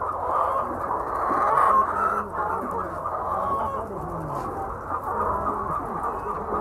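A flock of laying hens clucking, many calls overlapping into a steady chatter.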